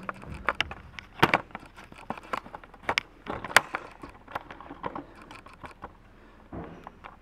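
Handling noise from the camera being carried and set in place: a string of irregular clicks, knocks and rubbing, the sharpest about a second and three and a half seconds in, thinning out over the last couple of seconds.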